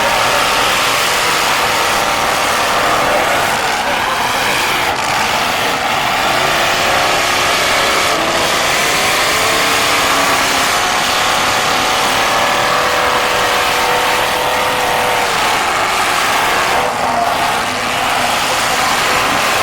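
Several demolition derby cars' engines revving and running at once, their pitches rising and falling as the cars accelerate and back up.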